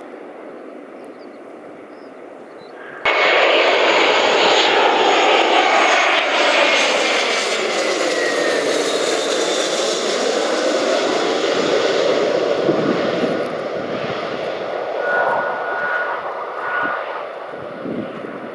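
Twin-engine Airbus A320-family jet airliner passing low overhead on final approach with its landing gear down. A loud jet rumble and engine whine starts suddenly about three seconds in, its whistling tone sliding down in pitch as the aircraft passes, then slowly easing off. Before it, a fainter, steady distant jet rumble.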